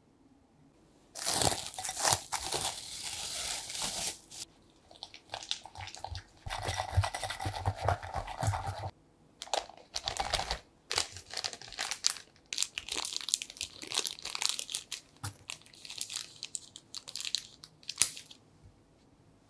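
Clear plastic piping bag crinkling and rustling as thick lemon curd is scraped into it with a spatula, then gathered and twisted shut. The handling noise comes in stop-start bouts with short pauses.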